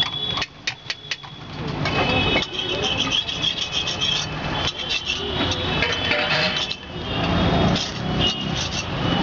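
Busy street-stall din of traffic and voices, with a few sharp metal clicks about half a second in, as a steel masher is lifted off the iron tawa.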